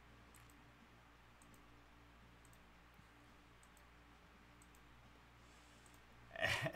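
Computer mouse button clicked repeatedly, about once a second, faint ticks with about six in all, as a web page's randomize button is pressed over and over. The owner complains that this mouse is no longer clicking like it normally does.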